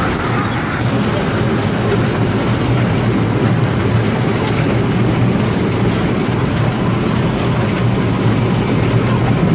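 Small amusement-park ride train running along its track: a steady rumble of the cars and drive with a low hum.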